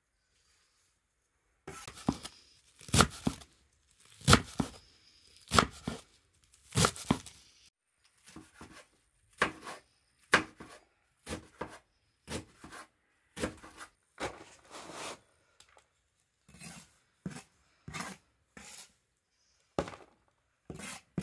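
Knife chopping fresh greens on a wooden cutting board: irregular sharp knocks, roughly one or two a second, starting after a short quiet moment.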